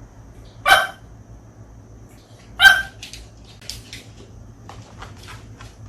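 Small dog, a Bichon Frise, barking twice, about two seconds apart, with a few faint clicks after.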